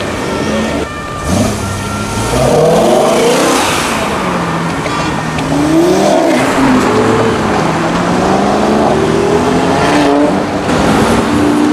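High-performance car engines revving hard and accelerating away, their pitch rising and falling through the revs and gear changes. Most of it is a BMW M3 of the E92 generation, whose 4.0-litre V8 revs through several rises. The sound breaks about a second in and again near the end as one car gives way to the next.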